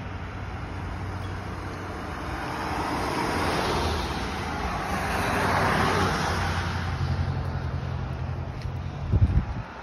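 Motor vehicle traffic: a steady low engine hum, with a vehicle sound that swells and fades about three to seven seconds in. A short loud low thump comes near the end.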